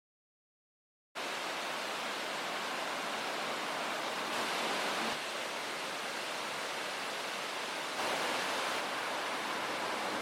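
A steady rushing noise with no distinct events, starting abruptly about a second in after dead silence. Its level steps up or down slightly a few times.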